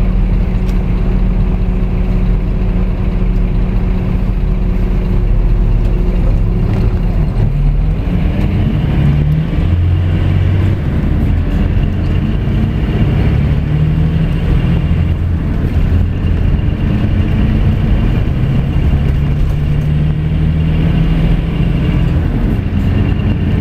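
Scania coach's diesel engine heard from inside the cabin near the rear, running steadily at first, then from about eight seconds in rising and falling in pitch as the coach accelerates, with road noise underneath.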